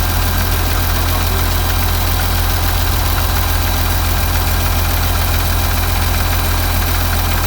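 Ural truck's turbocharged diesel engine idling steadily, run as a check after a boost-air leak at the turbocharger's rubber seals was sealed.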